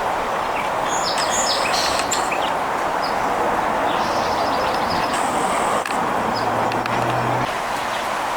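Small birds giving short chirps and calls, several in the first two seconds and a few more later, over a steady wash of background noise that is the loudest sound throughout.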